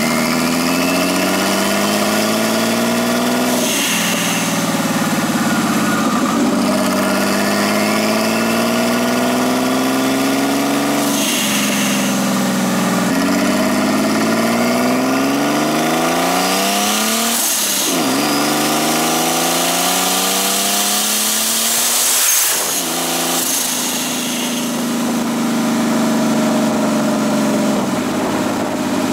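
Nissan RB20DET turbocharged straight-six engine, heard from the engine bay. It climbs steadily in pitch and then drops sharply, several times over, as when accelerating and changing up through the gears. Each drop comes with a short rush of hiss.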